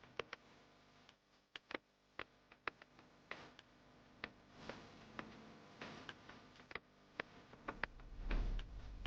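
Faint, irregular light ticks of a pencil tapping and dotting on paper, about one or two a second, with a dull low thump near the end.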